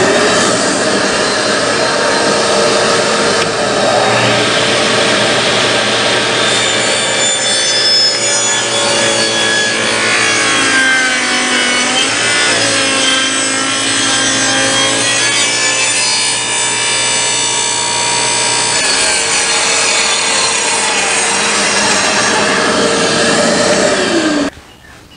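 Table saw ripping lengthwise through a thick glued-up cutting board blank, the blade running with a steady whine whose pitch sags in the middle of the cut as the motor labours. The kerf is closing and the wood is clamping against the blade, pinching it. The sound cuts off suddenly near the end.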